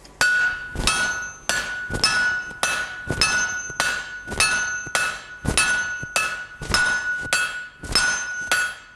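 A smith's hand hammer and a striker's sledgehammer take turns striking a hot steel bar on an anvil, drawing the bar out. There is a blow about every 0.6 s, each with a clear ringing note from the anvil.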